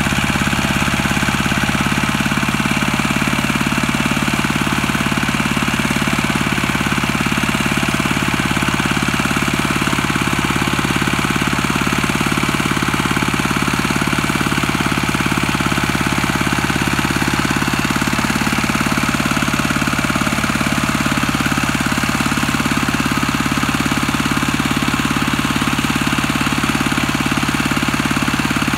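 Single-cylinder diesel engine of a two-wheel walking tractor running steadily with a fast, even knocking beat, with the tractor stuck and its wheels dug into dry field soil.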